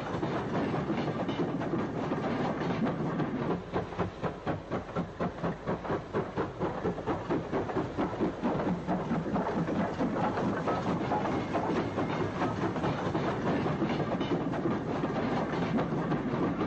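Double-chimney LMS Black Five 4-6-0 steam locomotive working uphill, a steady run of rhythmic beats with the rumble and clatter of the train, the beats clearest and about three a second through the middle.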